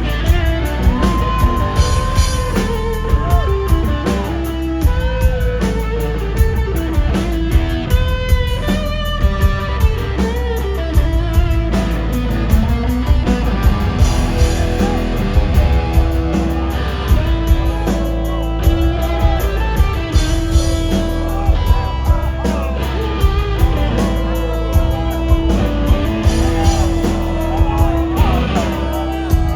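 Live rock band playing an instrumental passage: electric guitar lines over a drum kit keeping a steady, hard-hit beat, loud and full as heard from the audience.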